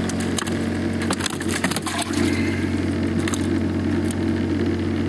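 Steady low mechanical hum with scattered knocks and clatter, a cluster of them between one and two seconds in, as a caught crappie (speckled perch) is handled and put into a bucket.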